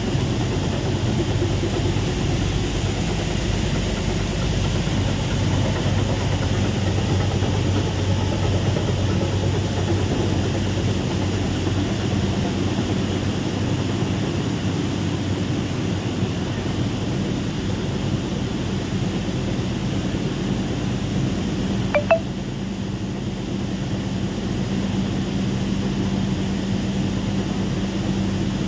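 Paddy cleaner machinery running: a steady mechanical drone with a low hum. A single short click about three-quarters of the way through.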